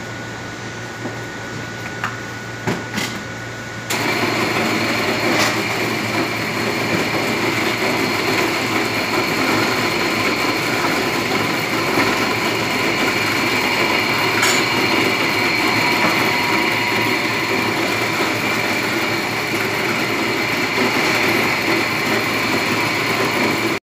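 A few soft knocks, then about four seconds in a steady mechanical whir of running kitchen machinery comes on abruptly, with a faint high whine over it, holding evenly to the end.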